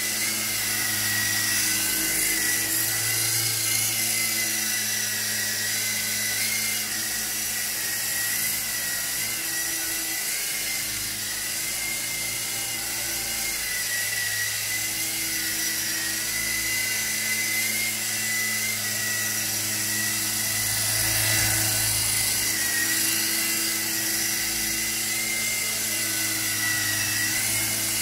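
Silverlit toy RC helicopter in flight, its small electric motors and twin coaxial rotors making a steady high whine that wavers slightly in pitch, over a lower hum.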